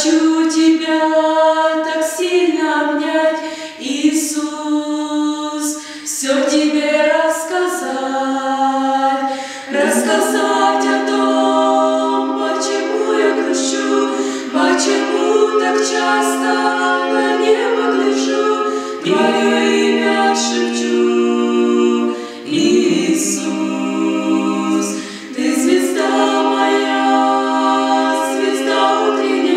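Small vocal group of three women and a man singing a Russian-language worship song a cappella in close harmony, phrase after phrase with long held chords and short breaks for breath.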